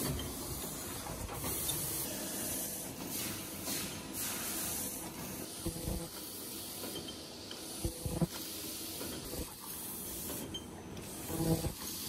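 Automatic paper cup forming machine running: a steady hiss with scattered mechanical knocks and clunks, the loudest a little over eight seconds in and again near the end.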